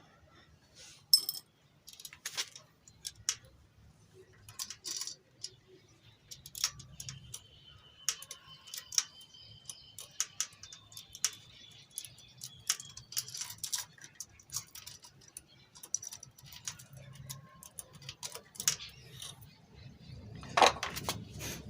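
Scattered light clicks and clinks of small metal engine parts being handled: the timing chain, worn tensor and sprocket pieces from a 110 cc motorcycle engine's opened timing side.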